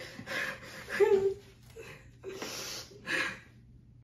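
A woman crying: a series of ragged, breathy sobs and gasps, with a short whimper about a second in and a sharp intake of breath about two and a half seconds in.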